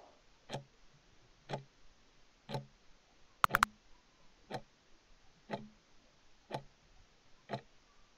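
Clock ticking steadily, about once a second, with a sharper double click a little over three seconds in.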